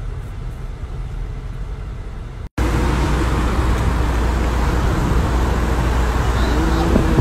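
Steady low road rumble inside a moving car, cut off abruptly about two and a half seconds in. It gives way to louder highway traffic noise, with a brief pitched tone near the end.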